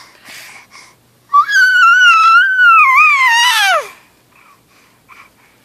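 Baby squealing: one long, very high-pitched vocalisation beginning about a second in, wavering in pitch and sliding down sharply at its end. A few faint short sounds before and after it.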